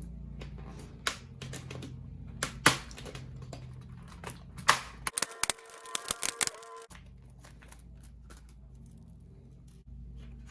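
Scattered sharp plastic clicks and taps from laptop parts being handled and pried during disassembly, with a quick run of clicks about halfway through.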